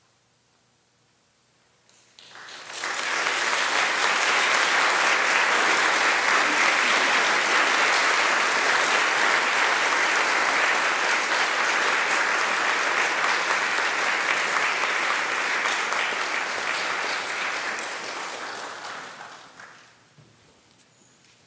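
Audience applauding in a church, starting suddenly about two seconds in after a silence, holding steady, then dying away near the end.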